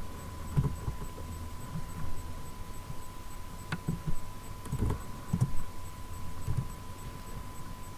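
Scattered muffled taps and knocks of typing on a computer keyboard, with one sharper click a little before the middle, over a faint steady high tone.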